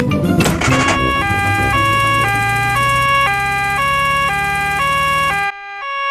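Cartoon two-tone emergency siren of a doctor's car, switching between two notes about every half second, over a low steady engine drone. It breaks off about five and a half seconds in and starts again just before the end.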